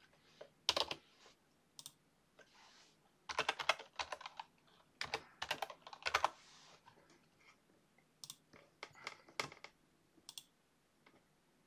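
Typing on a computer keyboard: quick key clicks in several short bursts with pauses between.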